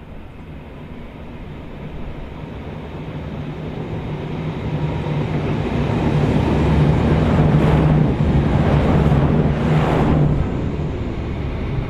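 V/Line VLocity diesel railcar approaching and passing directly underneath, its diesel engines giving a steady low drone that builds gradually, is loudest with a rushing hiss from about seven to ten seconds in as the cars go by below, then eases off.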